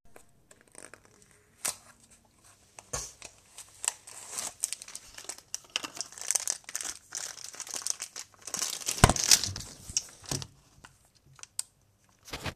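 Packaging being crinkled and torn open: irregular rustling and crackling with sharp clicks, loudest about nine seconds in.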